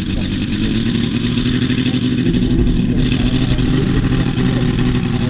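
Valach VM-250 R5 five-cylinder radial engine and propeller of a half-scale RC Bücker Jungmeister at full power on the takeoff roll, growing louder about a second in and then holding a steady note.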